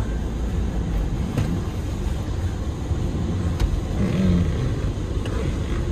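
Car engine idling, heard from inside the cabin as a steady low rumble.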